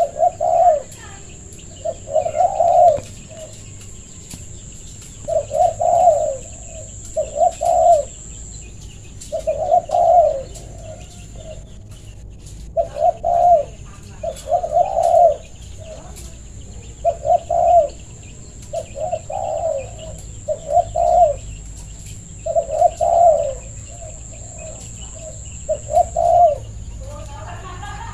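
Spotted dove (tekukur) decoy bird cooing over and over, short phrases of two or three coos about every one to two seconds, the calls coming close together. A faint steady high-pitched whine runs underneath.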